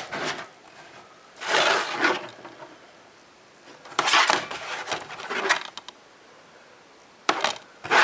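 Plastic DVD cases being handled, with a few short bursts of clacking and rustling about every two seconds.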